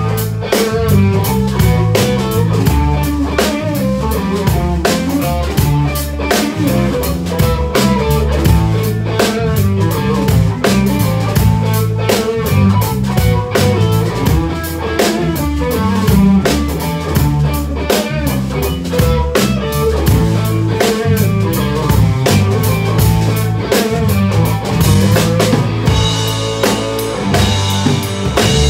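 A live band playing, heard close to the drum kit: steady drum strokes with rimshots over bass and guitar. The high end gets brighter near the end.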